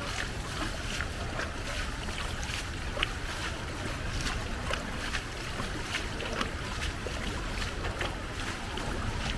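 Fast-flowing floodwater rushing and splashing, with many small sharp splashes over a steady low rumble.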